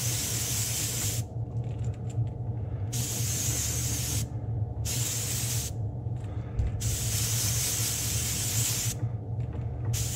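Iwata airbrush spraying pearl lime green Createx Wicked paint at about 30–35 psi, a loud high hiss that starts and stops in about five bursts of one to two seconds with short pauses between. The pressure is higher than the painter likes for coating a whole lure. A steady low hum runs underneath.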